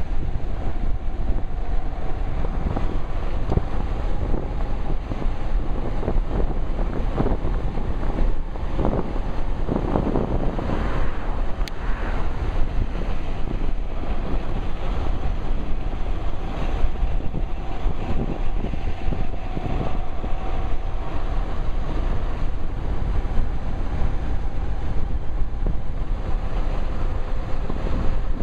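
Wind buffeting the microphone of a pocket-carried camera on a moving electric bike, a steady rumbling rush with a few stronger gusts a third of the way in. A faint steady whine runs underneath.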